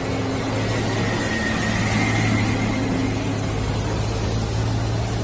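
A steady low engine hum under a wide wash of noise, swelling a little around the middle and easing near the end.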